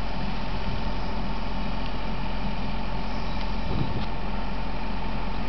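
Heavy diesel machinery running steadily, an excavator setting timber sheet piles with a pump running beside it, with a thin steady whine over the engine noise.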